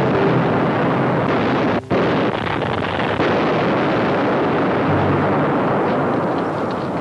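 Dense, continuous noise of anti-aircraft gunfire and bomb explosions on an old wartime film soundtrack, with a brief drop-out about two seconds in.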